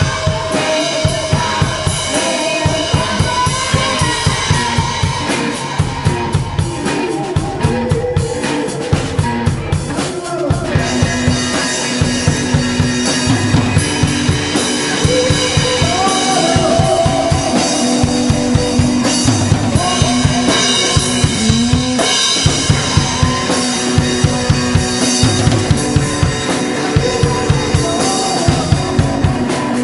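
Live band playing: a drum kit keeps a steady beat of bass drum and snare under guitar.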